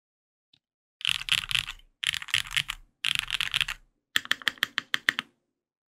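Typing on a Sangeo65 mechanical keyboard with lubed Durock POM switches, GMK keycaps and an aluminium plate. After about a second of quiet come three dense bursts of fast keystrokes, about a second each, then a quick run of separate single keystrokes that stops a little past five seconds in.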